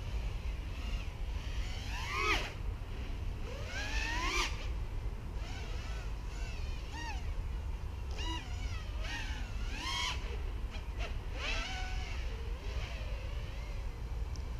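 5-inch FPV racing quadcopter with Emax RS2205 2300kv motors and HQ 5x4x3 props, its motor and propeller whine sweeping up and down in pitch with throttle punches. There are sharp rising whines about two and four seconds in and several more swoops later. All of this sits over a steady low rumble.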